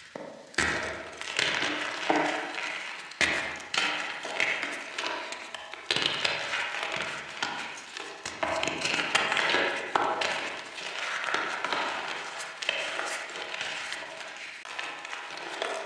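Reformed chalk chunks crunching and crumbling under pressure: a dense run of sharp, dry crackles and snaps in repeated bouts, with abrupt changes a few times.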